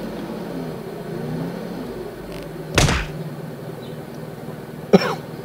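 Steady low hum inside the cabin of a Chevy Impala idling while parked, with one brief sharp noise about three seconds in.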